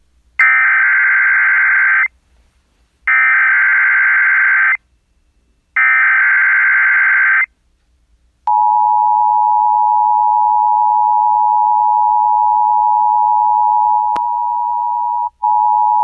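Emergency Alert System tones. First the SAME header: three harsh, buzzy digital data bursts of under two seconds each, with short gaps between them. About eight seconds in, the steady two-tone attention signal starts and holds, with a brief break near the end. Together they announce a tornado watch.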